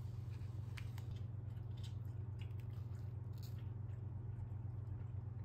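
A steady low hum with a few faint, short clicks and crackles of handling food and packaging, as a slice of pizza is pulled from its cardboard box.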